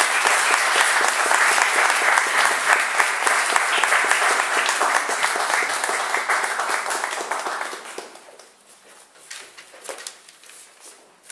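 Audience applauding after a live acoustic guitar song, a dense patter of hand claps that dies away about eight seconds in.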